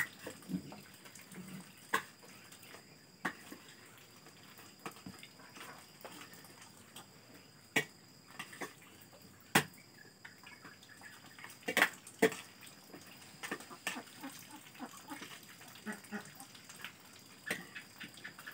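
Metal spoon and fork clinking against plates and bowls while eating, with wet slurping of noodles between the clinks. The sharpest clinks come about ten and twelve seconds in.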